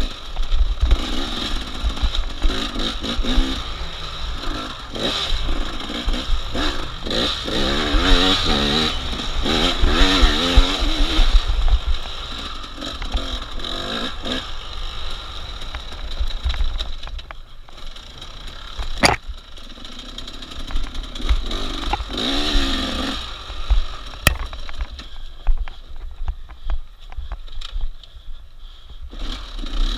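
Racing engine revving up and down hard, with wind rumble on the microphone. It eases off and runs quieter past the middle, with a sharp click about two-thirds through.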